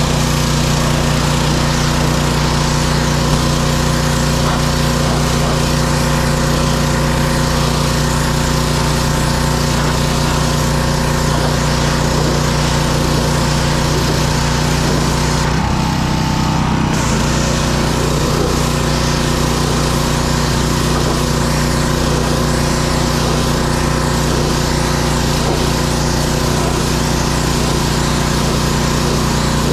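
Gas-engine pressure washer running steadily, with the hiss of its water jet hitting wooden deck steps. Both the engine note and the hiss dip and shift briefly about halfway through.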